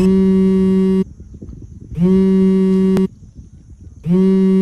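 Mobile phone buzzing for an incoming call: three identical buzzes about a second long and a second apart, each rising in pitch for a moment as it starts and then cutting off sharply.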